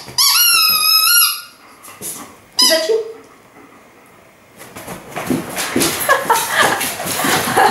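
Squeaker in a frog-shaped dog toy squealing loudly as a dog bites it: one long, wavering squeal in the first second. A woman laughs from about four and a half seconds on.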